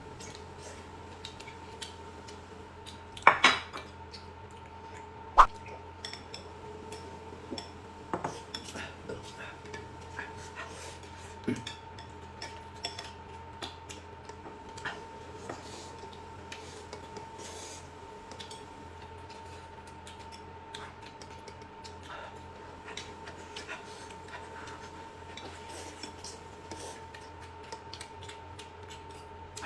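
Tableware clinking at a meal: scattered clicks and knocks of dishes and cutlery, the loudest about three and five seconds in, over a faint steady hum.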